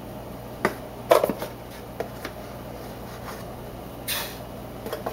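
Metal spoon tapping and clinking against a stainless steel saucepan as cornstarch is spooned in onto sugar: a few light clinks, the loudest cluster about a second in, and a short scraping hiss a little after four seconds.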